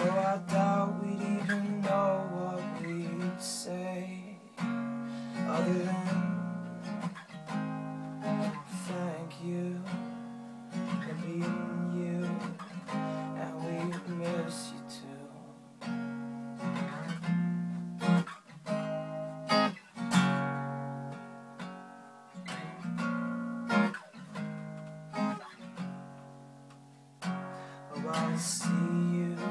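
Acoustic guitar strummed through an instrumental passage, chords ringing and changing about every second.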